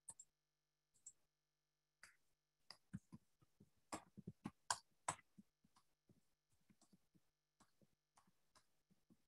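Near silence with faint, irregular clicks of computer keys, with a quicker run of them about three to five seconds in.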